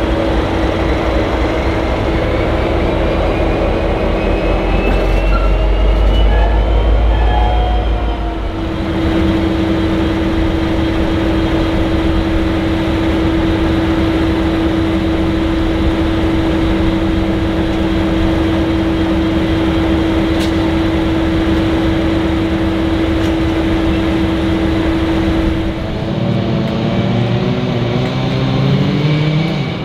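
V/Line N class diesel-electric locomotive's EMD V12 two-stroke diesel running, a loud steady hum with a constant tone. Its low rumble changes about 8 seconds in, and the engine note rises near the end as it throttles up.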